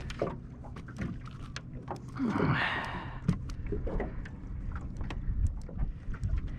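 Scattered knocks and clicks of a landing net and tackle being handled in a fishing boat as a crappie is netted, with a splash-like burst about two and a half seconds in, over a steady low hum.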